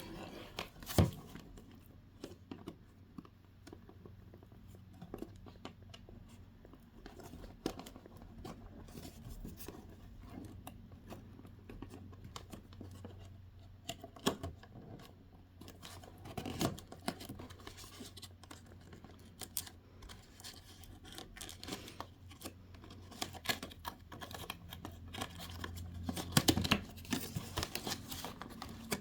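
A doll's cardboard box being opened by hand: scattered clicks, scrapes and rustles of the packaging, with a sharper knock about a second in and a cluster of louder handling noises near the end.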